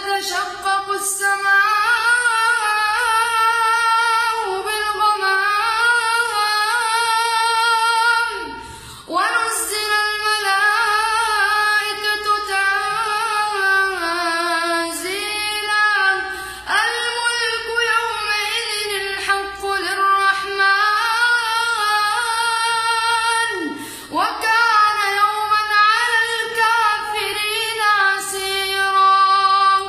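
A boy reciting the Quran in a melodic chant, his high voice holding long, ornamented phrases with short breaths between them, about four phrases in all.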